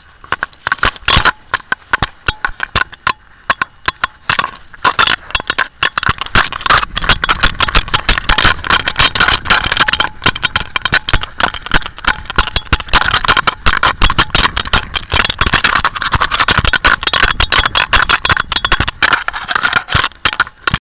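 Rapid scraping, rattling and crackling of a dog-worn pet camera rubbing and knocking against the dog as it moves. The noise is a little sparser for a couple of seconds early on, then turns dense and continuous.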